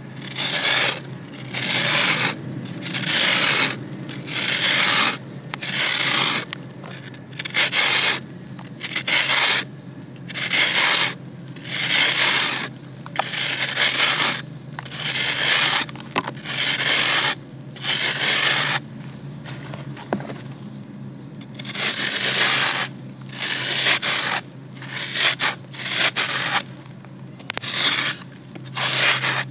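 A serrated knife scraping the edge of a slab of dry red dirt, in gritty strokes about one a second, shaving off crumbs and powder that fall into the basin.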